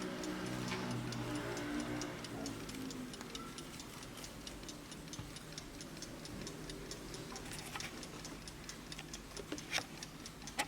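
Vintage Blessing alarm clock ticking steadily, several ticks a second.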